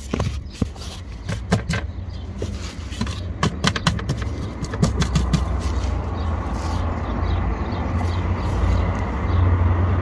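Exhaust heat shields being tapped and knocked by hand, a quick run of sharp metallic clicks and rattles over the first five seconds or so, to find which loose shield causes the exhaust rattle. After that a steady low rumble that grows louder near the end.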